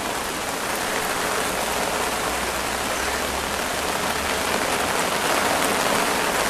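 Heavy rain falling steadily on a lake's surface and a wet paved bank, an even hiss of drops.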